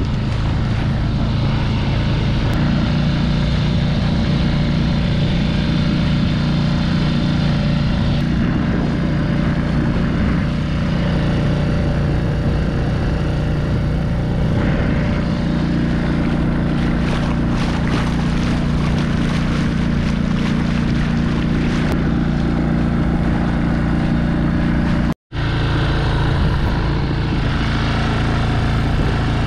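Small outboard motor on an inflatable dinghy running steadily at cruising throttle under load while towing an inflatable tube, with water hissing along the hull. The sound drops out for an instant about four seconds before the end.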